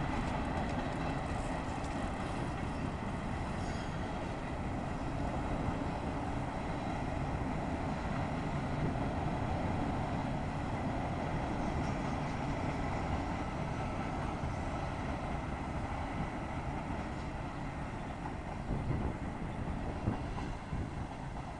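CSX mixed freight train rolling past, a steady rumble of the cars on the rails.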